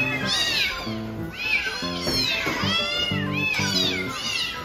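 A litter of Bengal kittens meowing over one another, high rising-and-falling cries following close on each other. They are begging for food, worked up by its smell and the clatter of the dishes.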